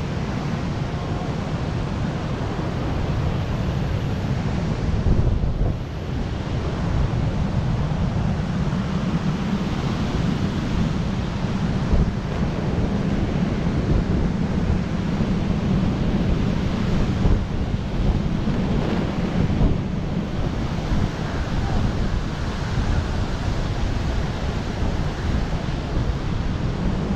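Wind buffeting a helmet-mounted action camera's microphone in wingsuit flight: a deep, steady rush of air, with a brief dip about six seconds in.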